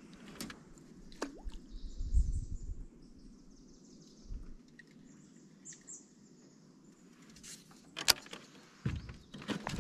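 Birds chirping in the background, with a short falling call about a second in. A low thump about two seconds in and a few sharp clicks near the end come from a rod and baitcasting reel being handled in an aluminium john boat.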